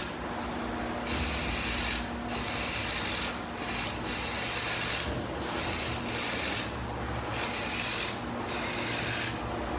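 Hissing noise in six repeated bursts, each about a second long, over a steady low workshop hum.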